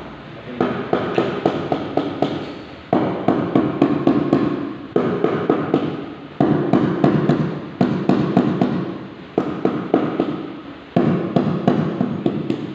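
Hand hammer striking in quick runs at the base of a marble slab, about five or six blows a second, in six bursts separated by short pauses.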